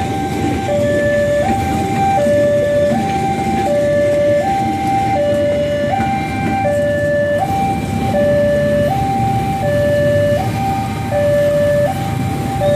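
Railway level-crossing warning alarm sounding a steady two-tone electronic signal: a higher and a lower tone alternating, each held about three-quarters of a second, warning of an approaching train. Underneath is the low rumble of a KRL electric commuter train passing.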